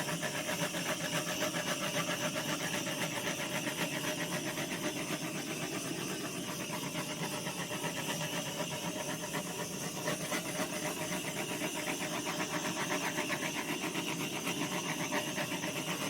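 Handheld gas blowtorch burning with a steady, rapidly fluttering hiss. The torch has a freshly fitted gas bottle, which the owner says makes it run a little crazy until it settles down.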